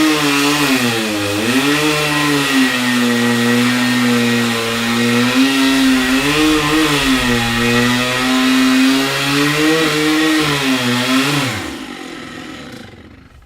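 Chainsaw engine running at high speed. Its pitch dips briefly a few times, then it winds down and cuts off near the end.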